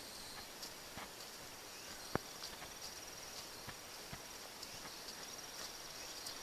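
Crickets or other field insects trilling steadily at a high pitch, with scattered faint clicks and taps, one sharper click about two seconds in.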